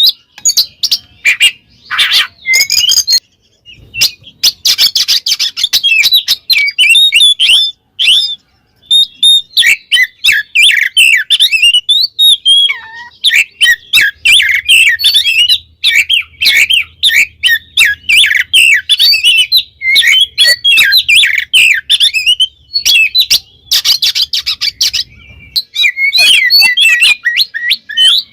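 Oriental magpie-robin (kacer) singing loudly in long strings of rapid, varied whistles and chattering notes, broken by a few short pauses. This is its full 'ngeplong' song, the call that challenges a rival male.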